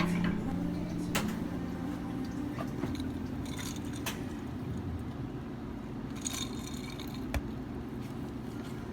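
Steady low room hum with scattered soft clicks, rustles and one small thump, like objects being handled.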